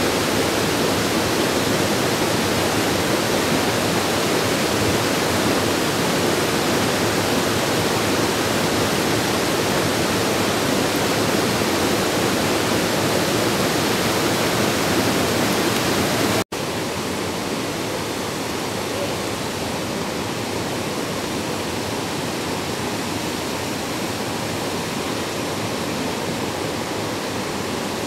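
Steady rush of water tumbling over a small cascade on Havasu Creek. About two-thirds through it cuts out for an instant and returns quieter and duller, the same rushing water heard from farther off.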